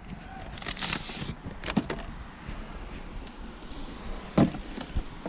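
Packaging being handled: a short rustle about a second in, then a few light knocks and clicks as the chainsaw's parts come out of the box.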